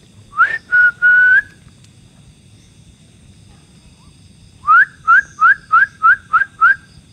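Loud whistled calls, each note sliding up and then holding: three notes about half a second in, then a run of seven quick ones at about three a second near the end. The host takes them for an owl calling.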